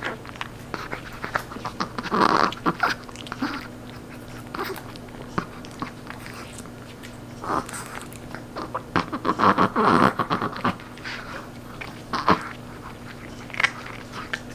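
Chihuahua crunching and gnawing a crispy dried duck knee cartilage treat: irregular crackling bites in clusters, with a lull around the middle.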